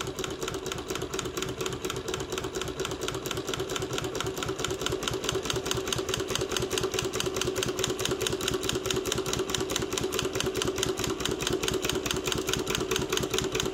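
Mauzer International chainstitch embroidery machine running, stitching a border around a felt patch: a fast, even clatter of needle strokes over a steady hum.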